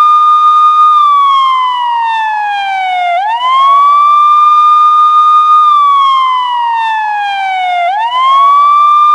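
Police car siren sounding a slow wail. It sweeps up quickly, holds a high tone for about two seconds, then glides slowly down before sweeping up again, a cycle about every four to five seconds.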